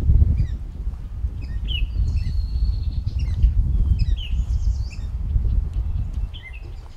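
Red-winged blackbirds calling: several short, downward-sliding whistled calls and one held high note, over a low rumble of wind and handling on the microphone.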